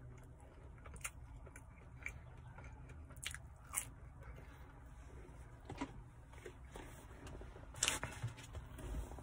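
A person biting and chewing food close to the microphone: scattered small crunches and mouth clicks, with a louder knock near the end.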